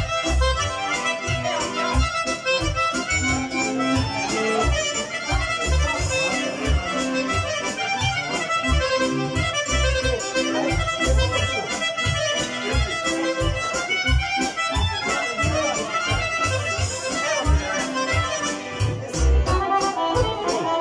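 Accordion playing a lively folk tune live, over a steady, even beat in the bass.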